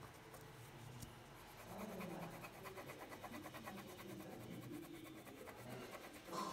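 Wax crayon scribbling on paper in quick back-and-forth strokes, faint, with a single knock near the end.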